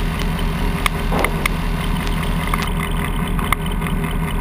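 Diamond Katana DV20's Rotax 912 flat-four engine running steadily at low taxi power, heard inside the cockpit, with a few light clicks.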